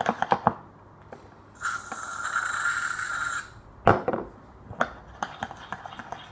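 Spoon scraping and clicking in a bowl of slime mixture, then an aerosol can sprays in one steady hiss of about two seconds, followed by a single sharp knock and more light stirring clicks.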